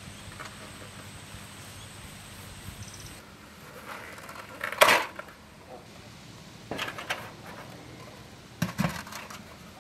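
Handling noise of a large metal tray holding a foil-wrapped pumpkin being set down on the ground: a few short knocks, scrapes and foil rustles, the loudest about halfway through and another pair near the end.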